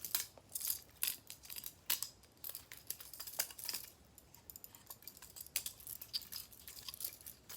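Butterfly knife being flipped: light metal clicks and clacks of the handles, coming irregularly, thicker in the first few seconds and again near the end.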